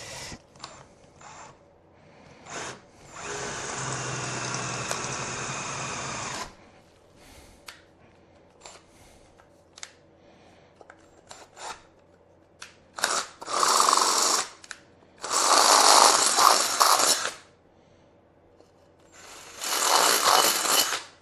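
Power drill with a 6.5 mm bit drilling holes through a scooter's inner mudguard. It gives a steady run of about three seconds, then after a pause with small clicks and knocks, three louder, rougher bursts of drilling near the end.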